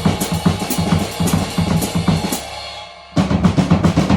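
Drum kit playing Swiss Army triplets between snare drum and ride cymbal with extra bass drum notes worked in, giving an uneven, lopey feel. The playing stops about two and a half seconds in and starts again a moment later.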